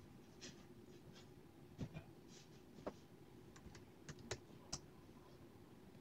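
Typing on an HP laptop keyboard: about a dozen soft, irregularly spaced key clicks that stop about five seconds in.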